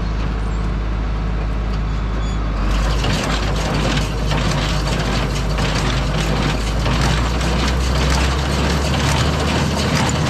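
Tractor engine running steadily while driving a hay baler; about three seconds in, a dense rattling, knocking clatter from the baler's moving parts starts up on top of the engine, as the just-repaired baler is run as a test.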